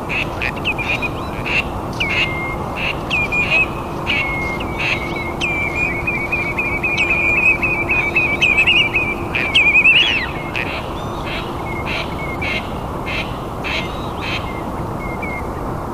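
Birds calling: quick repeated short call notes that build into a dense chattering run around the middle, loudest near its end, then thin out to scattered calls, over a steady low background hiss.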